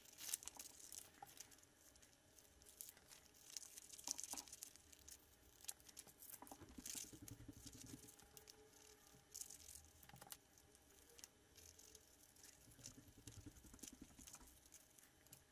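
Faint, irregular snips of scissors cutting through paper, mixed with rustling as the paper pattern is handled and cut into stained-glass templates.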